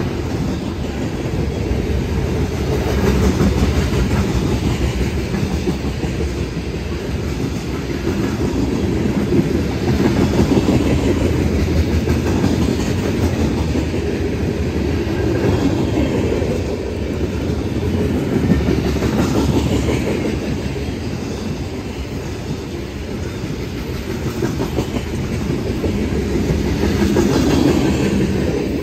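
Coal train's gondola cars rolling past: a steady, heavy rumble of steel wheels on the rails that swells and eases every several seconds.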